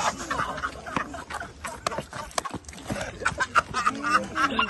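A group of people laughing and shouting, with a series of sharp smacks or claps throughout.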